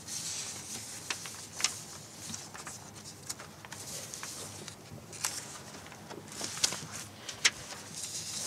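Quiet room tone of a large hall: a faint steady hiss with a few scattered small clicks and rustles.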